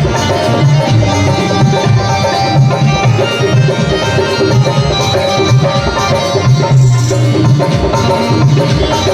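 Bhajan music played live: tabla-type hand drums keep a steady rhythm under sustained melody instruments.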